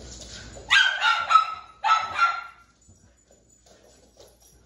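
Dog barking excitedly in two short runs of loud barks, the first about a second in and the second just before the midpoint.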